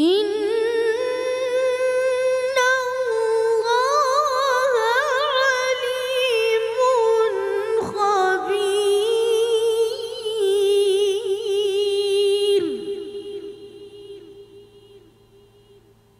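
A boy qari's high voice reciting the Quran in melodic tilawah style: one long phrase of held notes with rapid ornamented trills. It breaks off about twelve and a half seconds in, and the hall's echo dies away over the next two seconds.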